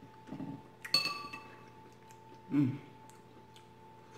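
A metal spoon clinks sharply against a ceramic soup bowl about a second in as chowder is scooped, the strike ringing briefly. A short, loud eating sound from the spoon at the mouth follows a little after the middle, over a faint steady hum.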